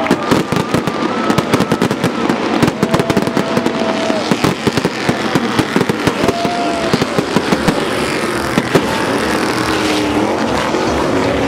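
Ground pyrotechnic fountains crackling with a dense, rapid run of sharp pops. The pops thin out in the last few seconds as a Stadium Super Truck's engine is heard running past.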